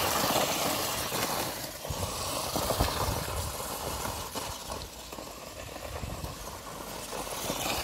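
Several RC cars pulling away together and driving over dry leaves and dirt: motors running and tyres churning the leaf litter, starting suddenly and louder in the first seconds, with a few knocks as they bump over the ground.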